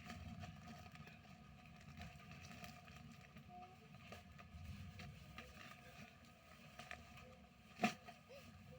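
Faint handling noise from a parcel being unboxed: low rumbling and scattered light clicks, with one sharper click about eight seconds in.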